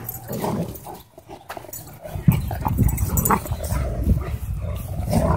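Dogs growling in rough play as a Doberman and a German Shorthaired Pointer tug on a toy between them. The sound gets louder about two seconds in.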